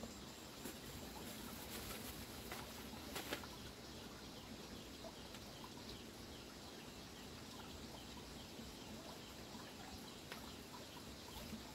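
Faint bird calls, with the soft rustle of a plastic bag and cloth as clothes are unpacked by hand, and a couple of light handling clicks about three seconds in.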